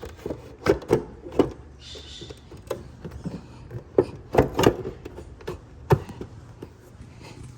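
Plastic tail light assembly of a Jeep Grand Cherokee being pushed and knocked into place on the body, its locating posts going into their holes: a series of irregular sharp clicks and knocks.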